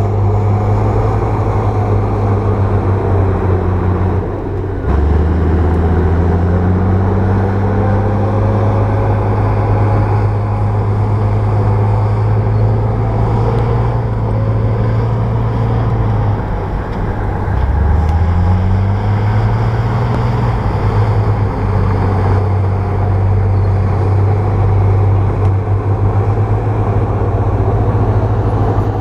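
Bulldozer diesel engine running steadily, its note dipping sharply twice, about five and seventeen seconds in, and climbing back each time.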